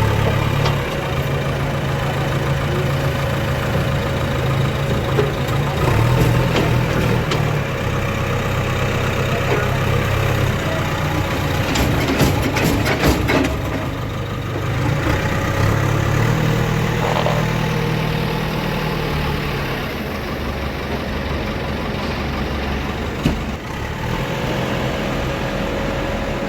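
Heavy vehicle's diesel engine running at idle and low revs, its note swelling and easing a few times, with a cluster of clicks and knocks about twelve seconds in.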